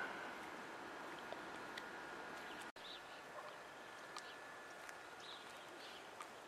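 Faint outdoor ambience with a few faint high bird chirps and a faint steady high tone. The sound cuts out for an instant a little under halfway through.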